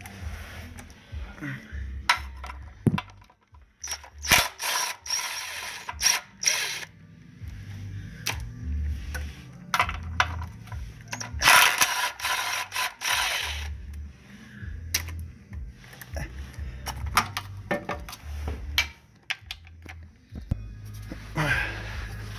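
Hand ratchet wrench clicking while loosening bolts, with scattered single clicks and several runs of fast ratcheting lasting a second or two.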